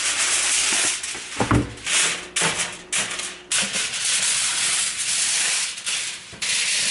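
Aluminum foil being pulled off its roll and spread over a metal baking sheet, a crinkling rustle with a short dull knock about a second and a half in.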